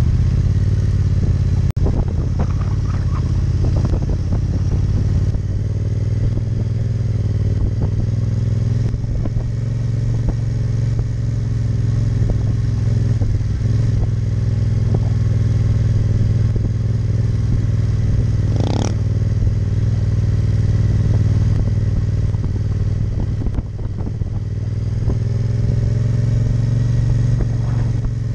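Yamaha Tracer 700's parallel-twin engine running at low, steady revs while riding slowly, heard from the bike itself. There is a sharp click about two seconds in and a brief high-pitched sound about two-thirds of the way through.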